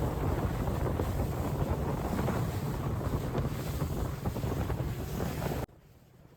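Wind buffeting the microphone over a steady low rumble, cutting off suddenly about five and a half seconds in.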